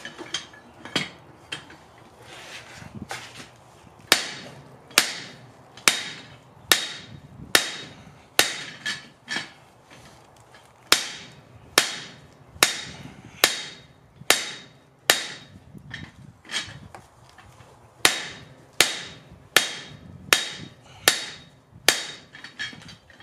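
Hand hammer striking the top tool of a guillotine-style tool guide that holds a hot steel billet. A few lighter taps, then steady hard blows a little over one a second, each with a bright metallic ring.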